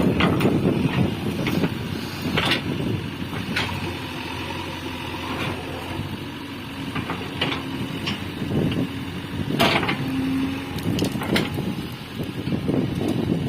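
JCB 3DX backhoe loader at work: its diesel engine runs with a steady low rumble, broken by several sharp knocks and clanks. A brief steady whine comes about two-thirds of the way through.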